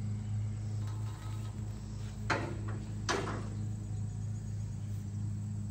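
Two sharp metallic clanks of scrap metal pieces, a little under a second apart, each ringing briefly, over a steady low engine hum.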